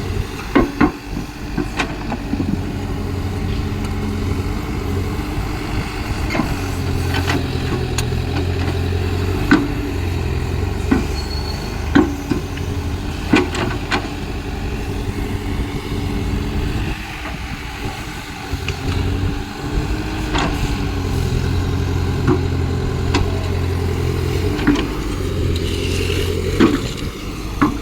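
Caterpillar excavator's diesel engine running steadily, its hum strengthening and easing in stretches as the machine works, with scattered sharp knocks.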